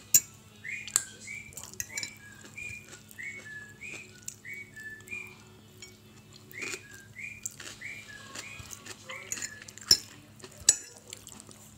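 Metal fork clinking against a plate as noodles are picked up, with sharp clicks right at the start and twice near the end. Behind it a high whistled two-note call repeats about twice a second and stops shortly before the end.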